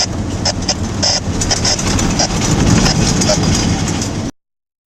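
Steady low rumble of a vehicle on the move, with scattered clicks and hiss over it; it cuts off suddenly a little after four seconds in.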